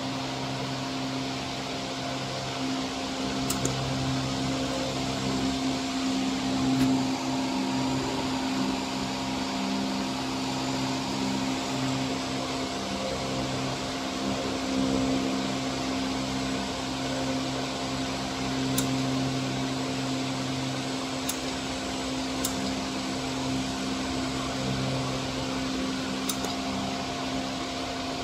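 Cooling fans of a desktop jewelry laser welding machine running with a steady hum, with a few faint sharp ticks scattered through.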